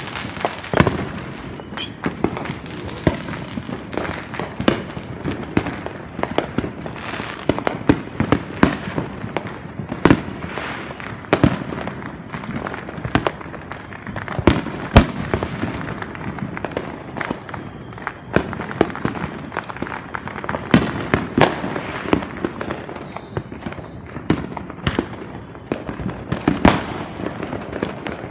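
Many fireworks going off at once across the neighborhood: a constant crackle with sharp bangs and pops every second or so, some much louder than the rest.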